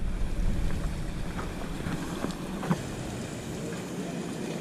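Wind rumbling on the microphone over water lapping around an inflatable paddleboard, with a light knock a little before three seconds in.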